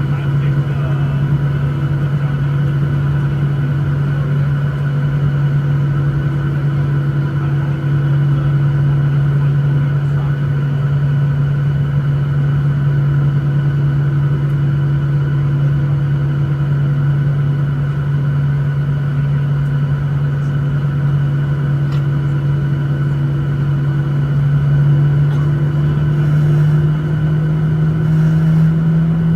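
Boeing 737-900ER's CFM56-7B turbofan engines at takeoff power, heard from inside the cabin: a loud, steady drone with a low hum and fainter higher tones, its pitch rising slightly near the end.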